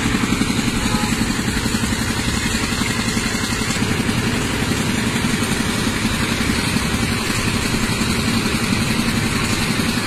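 Excavator diesel engine running steadily close by, with a fast, even throb.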